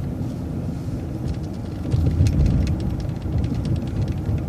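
Vehicle driving on city streets: steady low engine and road rumble, with light rattling clicks.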